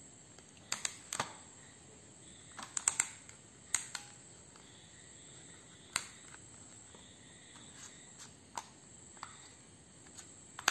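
Plastic clicks of a Canon Speedlite 600EX II-RT flash head being tilted and swivelled by hand, snapping through its click-stops. The sharp clicks come irregularly: a quick cluster about a second in, more between about two and a half and four seconds, then single clicks spaced further apart.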